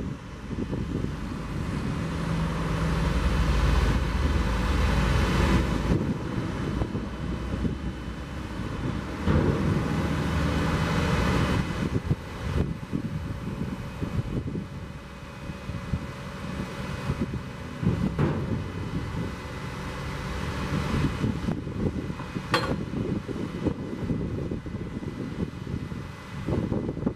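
Hino J08E diesel engine running to drive the hydraulics while the Pac-Mac KB20H knuckle-boom grapple is swung and folded in from its manual control valves. The engine and hydraulic sound swells and eases as the boom moves, with one sharp clack near the end.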